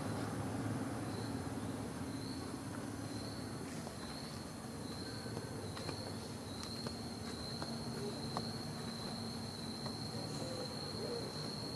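An insect's steady high-pitched drone sets in about a second in and holds, wavering slightly, over low outdoor background noise.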